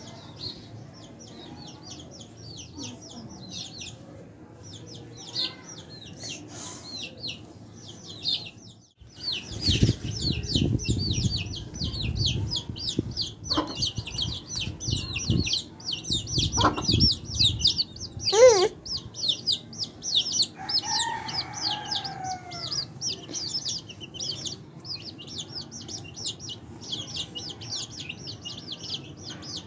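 A brood of young chicks peeping, rapid and steady, with a hen clucking now and then. About nine seconds in the sound drops out briefly, then a loud low rumble runs for a few seconds, and a single loud wavering call stands out just past the middle.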